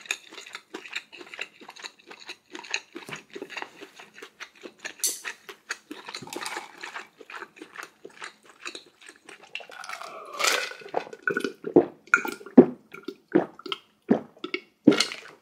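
Close-miked eating of spicy ramen: wet chewing, mouth smacks and slurps of noodles and broth, a rapid string of short clicks that grows louder and busier about ten seconds in.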